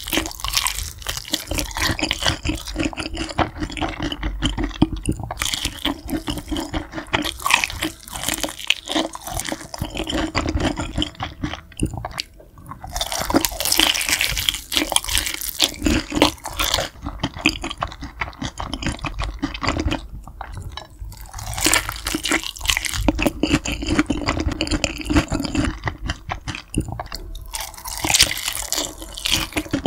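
Close-miked biting and chewing of sauce-glazed fried chicken: irregular crunches of the coated skin mixed with mouth noises, louder in stretches around the middle and near the end.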